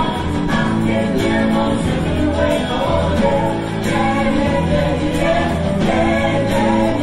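A live band playing a seventies pop song, with female vocals over electric and acoustic guitars, bass and drums, and a steady beat.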